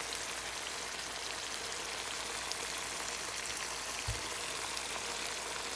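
Chicken sizzling in hot oil in a pan: a steady hiss with small scattered crackles, and a brief low thump about four seconds in.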